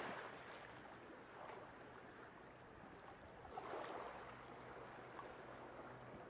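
Faint small waves washing against shore rocks, swelling a little about three and a half seconds in.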